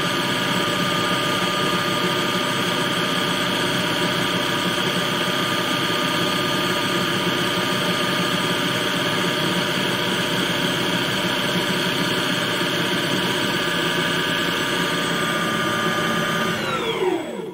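Home-built CNC lathe running steadily, its spindle and motor giving a whine of several steady tones over a mechanical hum. Near the end the pitch falls and the lathe spins down to a stop.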